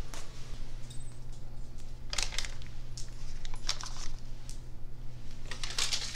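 Food-preparation handling noises: a few short rustling, scraping sounds over a steady low hum.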